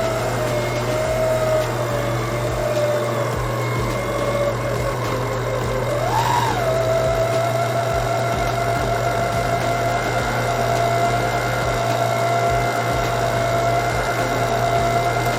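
Electric stand mixer running steadily while whipping cream, its motor giving a constant whine. About six seconds in the pitch briefly rises, then settles at a slightly higher speed.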